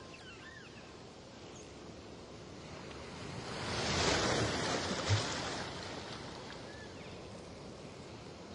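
Rushing, sloshing water picked up by an underwater action camera in its housing, swelling to a loud rush about four seconds in, with a dull knock a second later.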